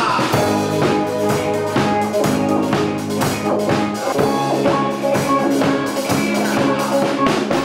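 Band music: a drum kit keeping a steady beat under sustained chords.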